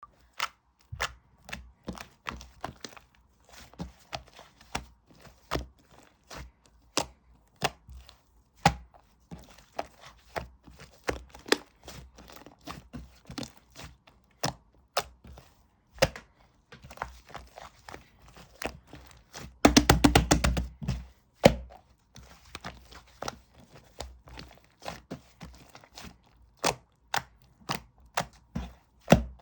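Slime being pressed and worked by hand, giving irregular sharp clicks and pops, with a quick run of rapid clicks about two-thirds of the way through.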